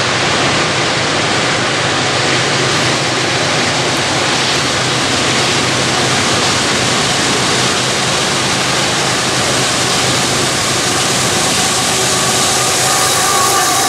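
Diesel freight train approaching: a loud, steady rushing noise that grows brighter toward the end as the locomotives near, with the locomotive horn starting faintly near the end.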